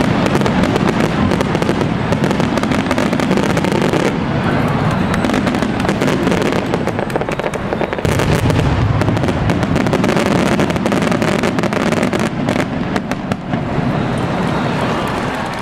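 Fireworks display: a dense barrage of shells going off in quick succession, many sharp bangs overlapping with a low rumble.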